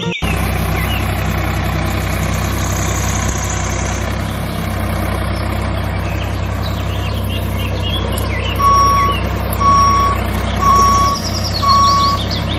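Tractor engine running steadily with a low hum. About two-thirds in, a reversing alarm starts beeping about once a second. Birds chirp faintly behind it.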